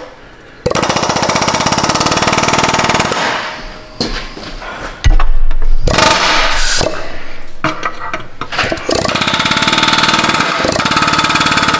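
Pneumatic air hammer hammering rapidly on a rusted, seized exhaust flange nut, trying to break it loose. One run of fast blows starts about half a second in and stops after about three seconds. After a short break, a longer run starts about five seconds in and goes on to the end.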